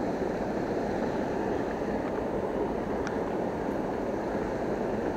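Steady rushing outdoor background noise at an even level, with a faint click about three seconds in.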